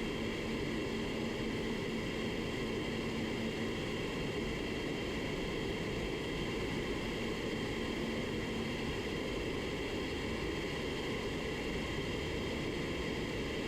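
Steady rushing air noise in an automotive paint spray booth, from the booth's ventilation and the spray gun's airflow as base coat is laid on. A faint low hum under it drops out about two-thirds of the way through.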